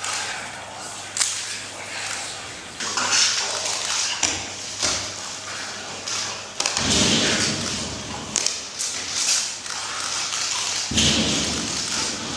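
Irregular bursts of cloth rustling and scuffing, with heavier, duller handling noise about seven seconds in and again near the end, as a performer works clay on his head and drags his suit jacket and shirt down off his shoulders.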